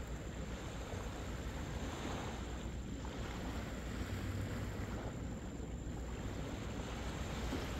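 Wind rumbling on the microphone over small waves washing onto the beach, the surf hiss swelling and easing every few seconds.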